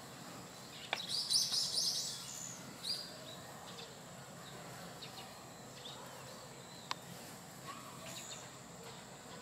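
Small birds chirping: a quick run of high chirps about a second in, then scattered single chirps over a steady background hiss, with one sharp click near the end.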